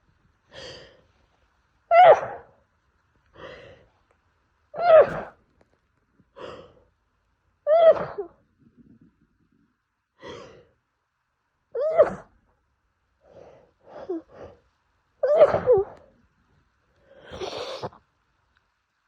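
A woman sneezing in a rapid fit, five loud sneezes each set off by a short gasping in-breath, about one every three seconds. The fit comes from pollen allergy.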